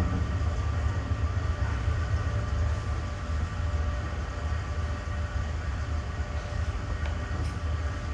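Standing passenger train's diesel engines idling: a steady low rumble with a constant hum above it.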